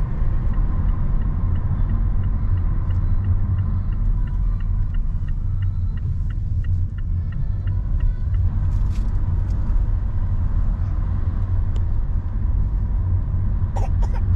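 Steady low rumble of a car driving, heard from inside the cabin. For the first eight seconds or so a faint, regular ticking runs over it, about three ticks a second.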